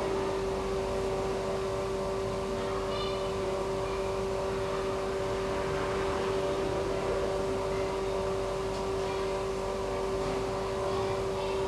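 A motor running steadily: a constant, monotonous hum with one strong unchanging pitch and fainter overtones above it.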